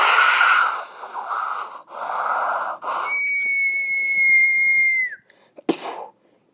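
Breathy hissing blown through the mouth in three stretches, then a steady high whistled note held for about two seconds that dips in pitch at the end, followed by a single sharp click.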